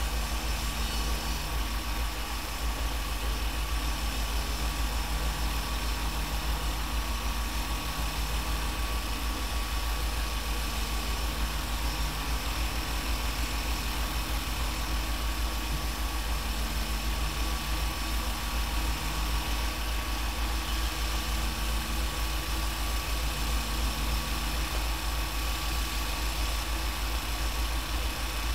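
An engine idling steadily, a low even rumble with a faint steady high whine over it.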